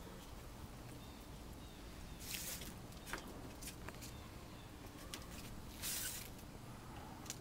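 Two brief rustles and a few light clicks and taps over a low, steady background hum.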